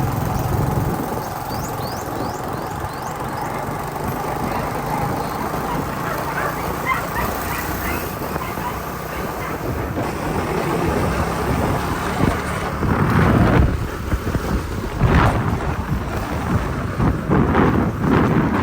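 Motorcycle engine running at road speed under steady wind and road noise, with a run of loud sharp bursts during the last few seconds.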